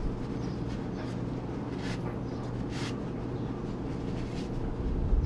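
Shop towel rubbing and swishing through a rusty leaf spring bushing hole as it is wiped clean of corrosion, a couple of soft scrubbing strokes about two and three seconds in, over a steady low rumble.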